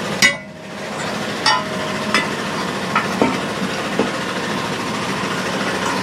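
Steel parts of a hay-spear frame clanking as they are handled and set against each other: one sharp, ringing metal clank just after the start, then several lighter knocks over a steady background noise.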